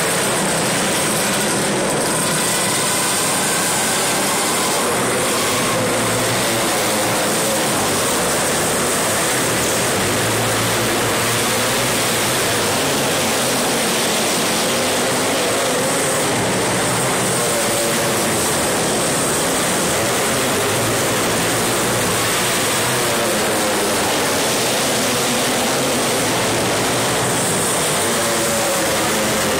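A pack of outlaw racing karts running at racing speed. The engines make a continuous loud drone, with pitches that waver up and down as the karts pass.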